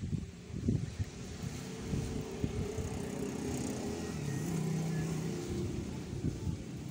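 A vehicle engine running steadily, growing louder to a peak about five seconds in and then easing off, with a few soft low knocks in the first second.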